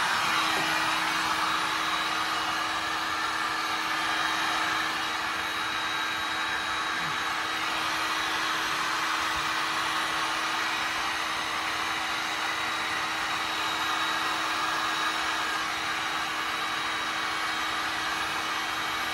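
A handheld hot-air blower such as a heat gun runs steadily with a constant whir and a steady hum from its motor.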